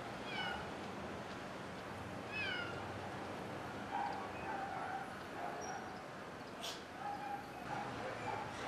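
Cat meowing twice, two short high-pitched falling meows about two seconds apart.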